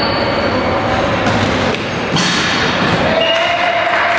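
Echoing sports-hall sound during a tchoukball game: a ball thud about two seconds in, short high squeaks of shoes on the court, and players' voices in the background.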